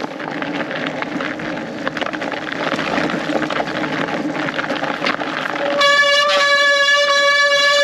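Fat bike riding over a frozen, snowy trail: tyre and frame rattle and rushing noise, then about six seconds in the brakes break into a steady, high squeal that holds without changing pitch.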